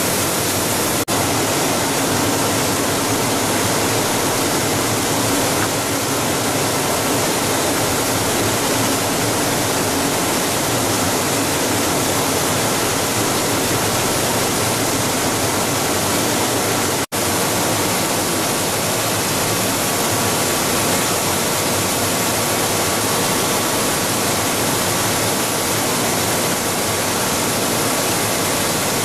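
Steady factory noise of a running plastic recycling extruder and die-face pelletizer line: an even, loud rushing noise with faint steady whines in it. It cuts out for an instant about 17 seconds in.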